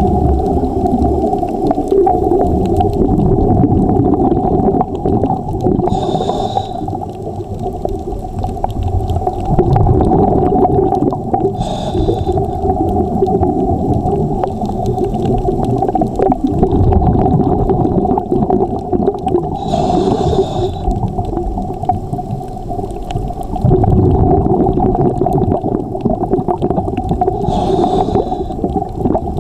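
Underwater sound of a scuba diver breathing through a regulator: a steady low rumble and burble, broken by a short hiss of inhalation four times, about every six to eight seconds.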